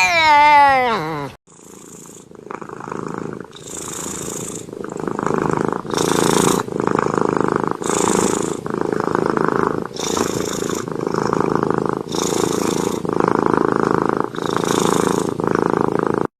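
A domestic cat finishes a meow that falls in pitch, then purrs in waves that swell and fade about every two seconds. The purring cuts off suddenly near the end.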